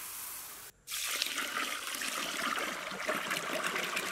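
Dry rice grains pouring into an aluminium pot with a steady hiss; after a brief break just before a second in, water pouring from above into the pot and splashing onto the rice.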